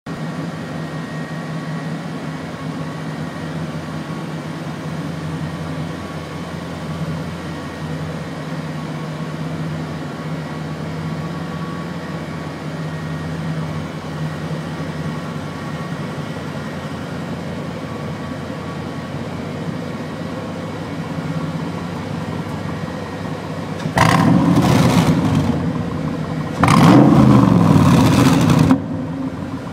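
Hamann-tuned Mercedes G55 AMG V8 idling steadily through its six-pipe exhaust, then revved twice near the end, each rev held about two seconds.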